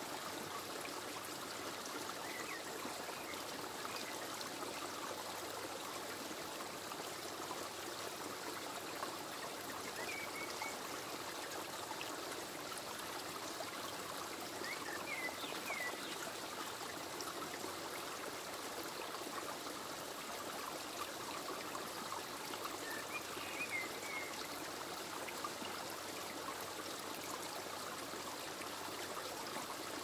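A stream running steadily with an even rush of flowing water, and a few faint, short bird chirps now and then.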